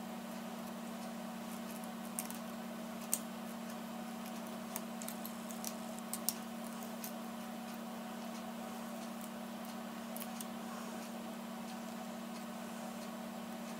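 A few light, sharp clicks and taps of a tool working at the edge of an iPad 2's glued glass, testing whether the heated adhesive has let go, over a steady low hum. The clicks are scattered through the first half and then stop.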